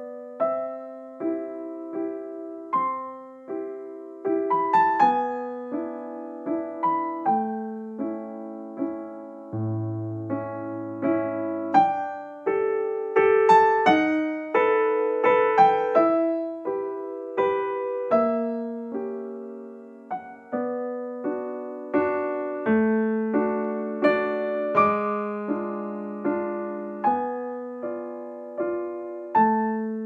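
Background piano music: notes and chords struck at an even pace, each left to ring and fade.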